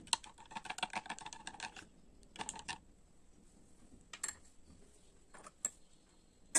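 A steel spoon clinking rapidly against the inside of a glass tumbler as juice is stirred, for about two seconds, then a short second burst of clinks and a few single taps.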